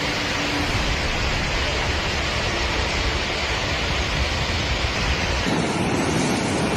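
Steady rushing noise of floodwater and heavy rain. About five and a half seconds in it changes to the fuller, lower rush of a muddy flash-flood torrent.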